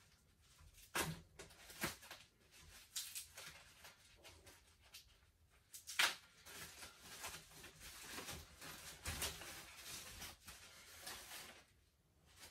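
Scattered handling noises: light clicks and knocks with stretches of rustling, the sharpest knock about six seconds in.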